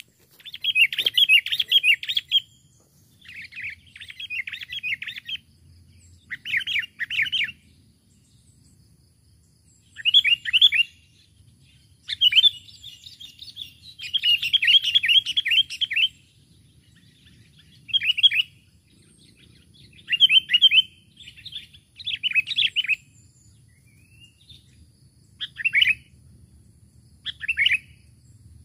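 Sooty-headed bulbul giving bursts of rapid, high chattering calls, about a dozen phrases with irregular pauses between them.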